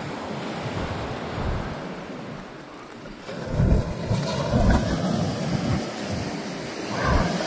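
Sea surf washing onto a beach, with wind buffeting the microphone in gusts that grow heavier about halfway through.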